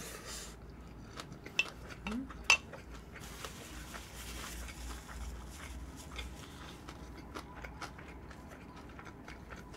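Quiet eating sounds: a spoon scraping and clinking against a bowl, with two sharper clicks a little under a second apart.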